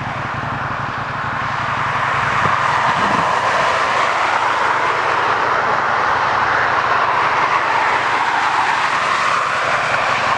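Jet airliner's engines at high power on the runway, a steady roar that swells over the first couple of seconds and then holds, as on the start of a takeoff roll.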